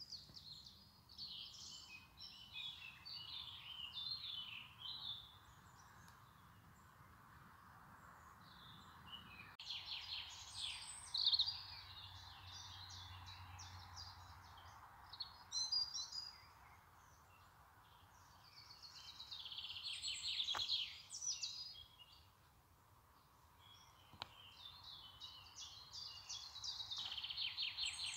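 Small songbirds singing: bursts of high chirps and fast trills a few seconds long, with short pauses between them, over a faint steady hiss.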